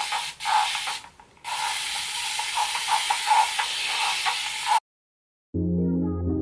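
A steady rustling hiss of hands working curl cream through wet hair close to the microphone, broken by two short pauses. It cuts off suddenly near the end, and after a brief silence soft background music with sustained chords begins.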